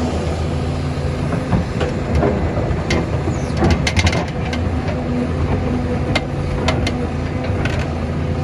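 Doosan DX excavator's diesel engine running steadily, with sharp clanks and knocks from the working machine, thickest about four seconds in.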